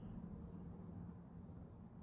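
Faint outdoor ambience: a low steady hum with a few faint, short bird chirps.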